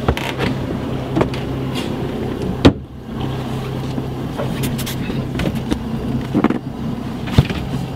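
A loud knock about two and a half seconds in as the fibreglass lid of a boat's stern storage locker is shut. Smaller knocks and rustles of seat cushions being put back in place follow, over a steady low mechanical hum.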